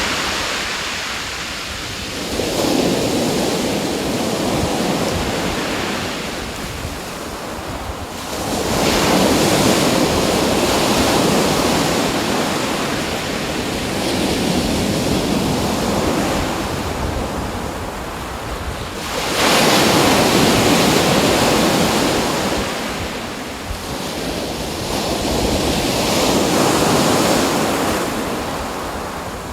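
Sea waves breaking and washing in, the roar of surf swelling and fading about four times, the largest wave about two-thirds of the way through, with some wind.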